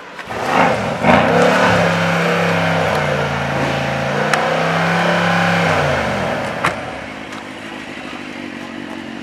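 Mercedes-AMG C63's twin-turbo V8 revved through its exhaust for a stationary noise test: two quick blips, then held at a steady high rev for about four seconds before dropping back to idle. A single sharp crack comes shortly after the revs fall.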